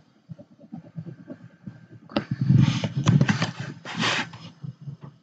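Stylus scribbling rapidly on a tablet to shade in an answer bubble: a quick, irregular run of scratches and taps, busiest about halfway through.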